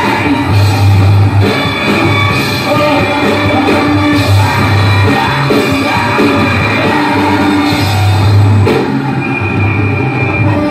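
A heavy rock band playing live and loud, with electric guitars over a heavy bass.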